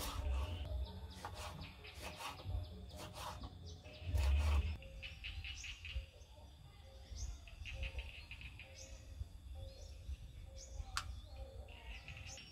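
Kitchen knife chopping chillies on a wooden cutting board, a run of sharp chops, with a low thud about four seconds in. After that, birds chirp in short calls.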